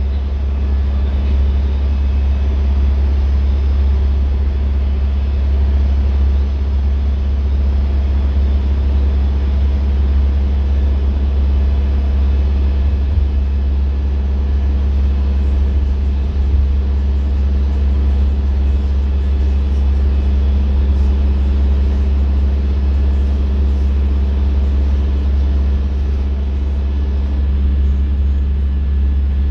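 Daimler-engined Wright StreetLite single-decker bus cruising at steady motorway speed, heard from inside the saloon: a loud, steady low engine drone with road noise, unchanging throughout.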